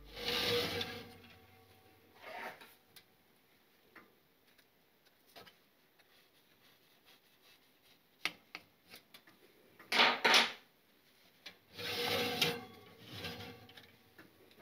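Rubbing and rasping handling sounds as an oven-mitted hand works at an aluminium chiffon cake pan on a wire oven rack, testing the cake with a skewer. Scattered short rasps, with two loud ones close together about ten seconds in and a longer one about two seconds later.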